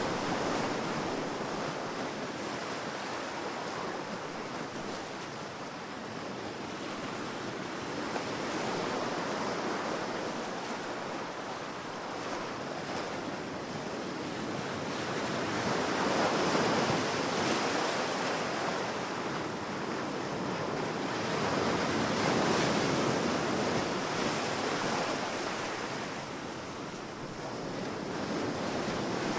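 Sea waves breaking and washing on a beach, a continuous surf rush that swells and fades, with louder surges about halfway through and again a few seconds later.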